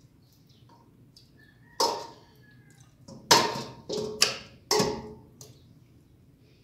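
A metal spoon clanking against an aluminium pressure cooker and a steel bowl as chicken pieces are dropped into the water: five sharp clanks, each with a short metallic ring, bunched in the second half.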